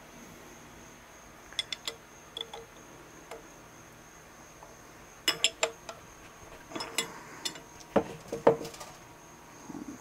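Steel hand tools and small metal parts clinking and tapping against the cast-iron lathe saddle and taper attachment as a wrench is worked on its fittings. The clinks are sharp and scattered, a few early on, then clusters about five seconds in and again from about seven to eight and a half seconds.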